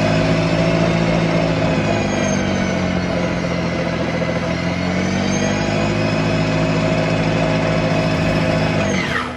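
EGO 24-inch cordless snow blower's electric motor and auger running with a steady whine, the pitch sagging slightly and recovering midway, then spinning down quickly just before the end.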